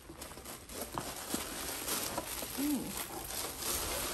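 Tissue paper rustling and crinkling as jewelry is unwrapped by hand, with a few light ticks from handling.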